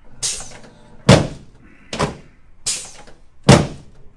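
Repeated thunks from a chiropractic adjusting table as the chiropractor thrusts on the pelvis in an SI joint adjustment: five short impacts in about four seconds, the ones about a second in and near the end loudest.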